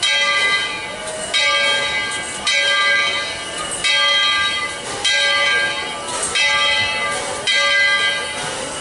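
Steam locomotive's bell ringing steadily, one clang a little more than once a second, each ringing on into the next.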